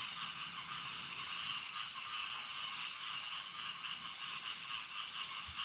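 Steady chorus of insects with a cricket chirping in short, regular pulses, about four a second, through the first half.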